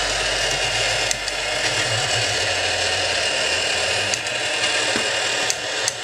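Tomica Disney Pixar Cars rotating parking-tower toy turning, its plastic gear drive giving a steady grinding whir, with a few light clicks.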